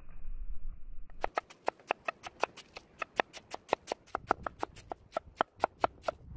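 Large kitchen knife shredding a red cabbage on a wooden cutting board: quick, even crisp cuts, about six a second, the blade tapping the board with each stroke, starting about a second in.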